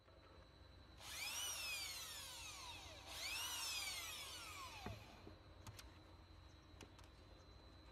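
Handheld electric drill run in two bursts of about two seconds each, its whine climbing quickly and then sinking steadily as the motor slows. A few light clicks follow.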